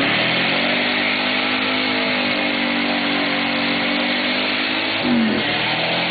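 A V8-era muscle car's engine held at high revs during a burnout, with the spinning rear tyres hissing and squealing. Its pitch holds steady, then dips and recovers briefly about five seconds in.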